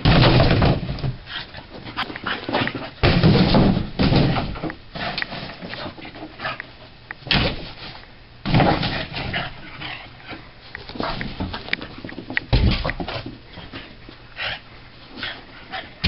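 Boston terrier chasing a laser pointer dot, with short irregular bursts of whimpers and barks mixed with scuffling; a few bursts are much louder than the rest.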